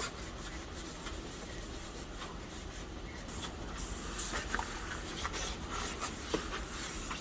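Faint rubbing and light handling sounds with a few soft clicks, over a low steady hum.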